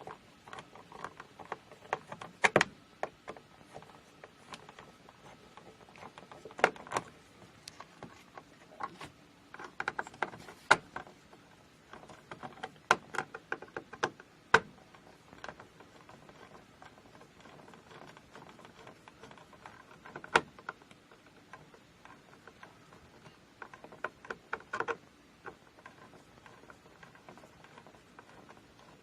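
Irregular clicks and small knocks of a hand screwdriver and metal mounting screws as a dimmer switch is screwed into an electrical wall box, some in quick clusters, with a quieter spell about midway.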